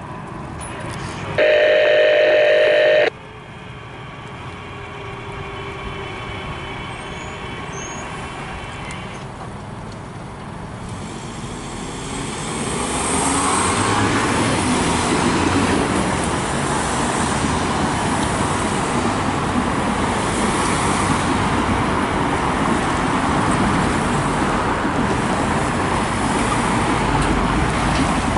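A MARC commuter train's horn sounds one blast of under two seconds about a second and a half in. Later the train's approach and passing noise builds from about twelve seconds and stays loud and steady to the end.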